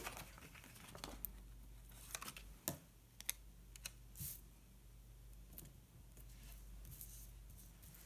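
Faint handling of paper and sticker sheets: scattered light taps and crinkles with a brief rustle about four seconds in, as stickers are peeled and pressed onto a planner page.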